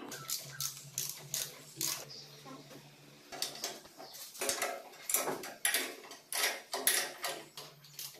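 Wrench clicking and clinking on metal as the engine's mounting bolts are tightened to the steel buggy frame, in irregular short runs that grow busier in the second half.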